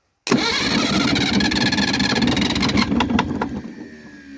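Leyland tractor's diesel engine, cranked on a 24-volt starter, bursting into loud running almost at once, with a few sharp knocks near the end, then dropping away about three seconds in with a falling pitch as it slows.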